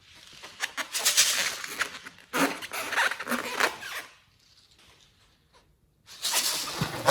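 Slime being squished and worked by hand, three bursts of wet clicking and crackling, the last starting about six seconds in.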